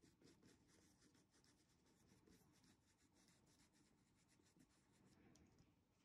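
Very faint, quick brush strokes, several a second: a flat brush working craft paint through a plastic stencil onto a fabric apron. The strokes stop about five seconds in.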